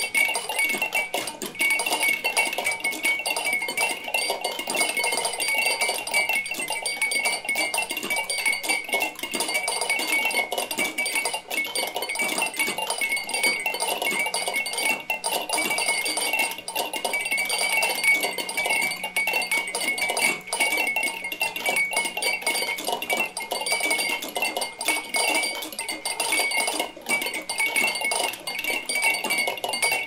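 Hundreds of glass drinking-bird toys bobbing at once: a dense, unbroken patter of small clicks and clinks over a steady glassy ringing.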